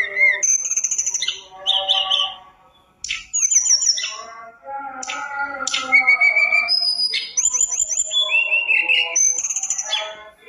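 Caged tledekan gunung (sulingan gunung) singing a long, varied song of clear whistled phrases, quick up-and-down glides and rapid trills, with a short pause about three seconds in.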